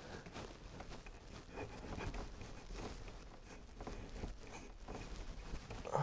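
Knife blade cutting and scraping away plastic, heard as faint scattered small scrapes and clicks.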